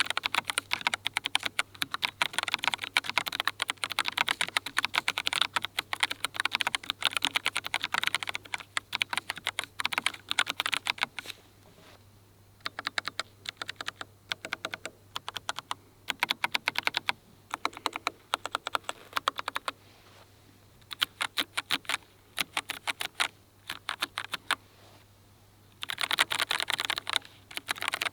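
Typing on a Keychron K5 Ultra 8K low-profile mechanical keyboard with Milk-POM Banana early-tactile switches: fast, continuous keystroke clicks for about the first eleven seconds, then short bursts of typing separated by pauses, and steady fast typing again near the end. A faint low hum lies underneath.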